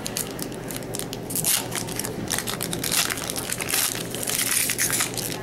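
Hockey card pack wrapper being torn open and crinkled by hand: a run of irregular crackling rustles, loudest in bursts through the middle and near the end.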